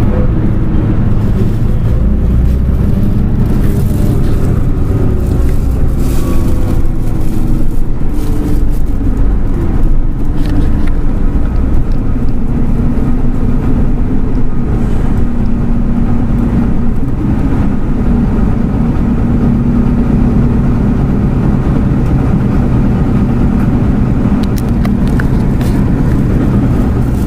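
Mitsubishi Fuso Aero Star (QKG-MP38FK) route bus running, heard from inside the cabin: a diesel engine and drivetrain drone whose pitch rises over the first several seconds as the bus speeds up, then holds steadier while it cruises, with road rumble underneath.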